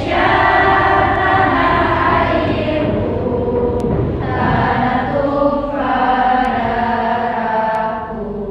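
A class of students chanting together in unison, in long held phrases with short breaks between them.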